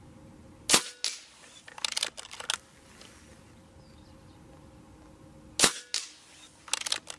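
Two shots from a regulated, shrouded Reximex Zone PCP air rifle, about five seconds apart. Each is a sharp crack, followed a moment later by a fainter crack and then by a quick run of light clicks.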